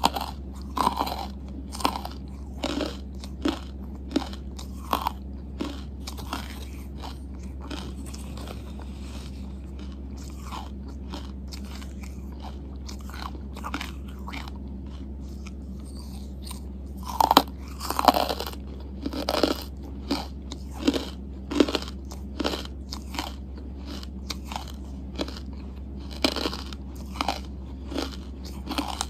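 Close-miked crunching and chewing of hard charcoal chunks: irregular sharp bites and crunches, loudest in a quick cluster a little past halfway, over a steady low hum.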